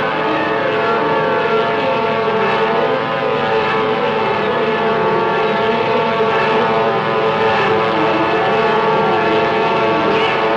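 Cartoon sound effect of a warplane in a steep dive: a loud, steady screaming wail of many held tones, wavering slowly up and down.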